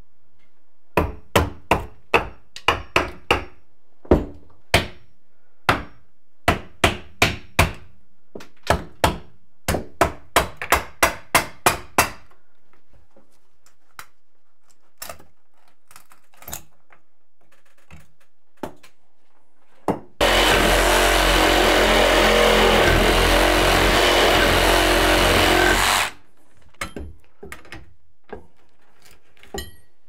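Hammer blows on old wooden wall studs, knocking them loose, in quick runs of strikes for the first dozen seconds and then a few scattered knocks. About 20 seconds in, a power tool runs steadily for about six seconds and stops abruptly, followed by light taps.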